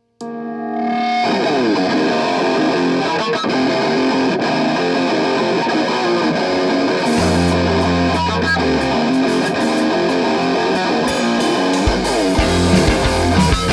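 Rock band playing live: after a moment of silence a distorted electric guitar riff starts a song alone, a low bass part comes in about seven seconds in, and the full band with drums builds up near the end.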